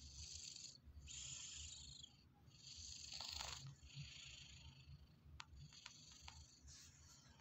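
Domestic cat snoring in its sleep: soft, hissy breaths come about every second and a half and fade after about five seconds. A few faint clicks follow near the end.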